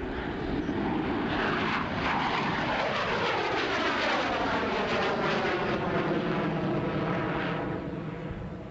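Jet noise from a Grumman F-14A Tomcat's twin Pratt & Whitney TF30 turbofans as the fighter flies past, with a phasing whoosh that sweeps down in pitch from about two seconds in. It eases off near the end.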